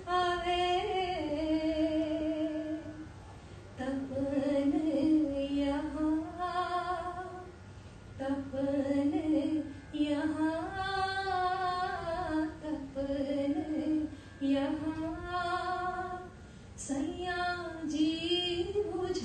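A woman singing a slow devotional song (bhajan) solo, in long drawn-out phrases with wavering held notes and short pauses between them.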